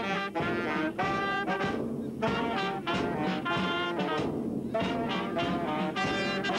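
Marching street brass band (fanfare) playing a tune, with saxophones and trumpets carrying the melody in short phrases.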